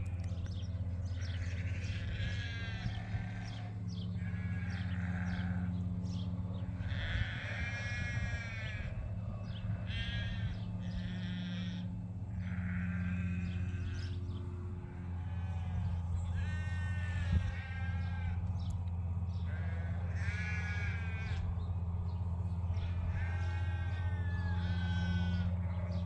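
A flock of ewes bleating over and over, with a new call every second or two and some overlapping. They are excited at being let out to fresh pasture after a long spell shut in.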